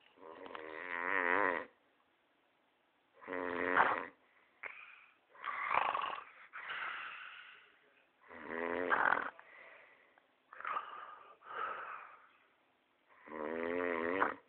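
A man snoring loudly in his sleep: four long, loud snores about every four to five seconds, with softer breathing sounds between them.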